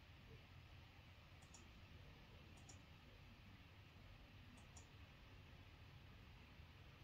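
Near silence: faint room tone with three soft pairs of short clicks spread across a few seconds.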